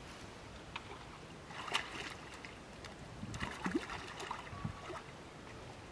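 Water splashing and sloshing as long-tailed macaques swim and dive, in bursts about a second and a half in and again from about three to four and a half seconds in.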